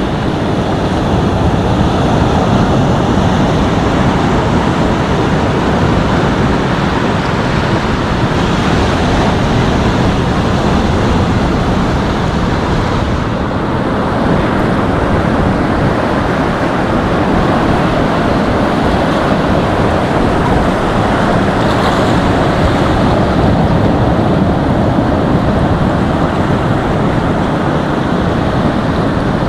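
Ocean surf washing steadily against a rocky shore, a loud, even rush of noise, with wind buffeting the microphone.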